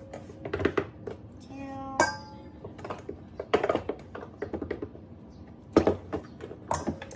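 Irregular clicks and taps of kitchen utensils, such as a knife cutting butter on a board and measuring spoons. A brief voice is heard about two seconds in.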